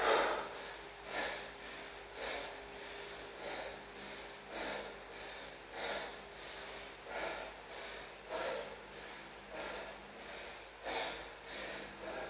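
A man breathing hard and fast, a heavy breath about every second, winded between sets of chin-ups in a deadlift, burpee and chin-up circuit.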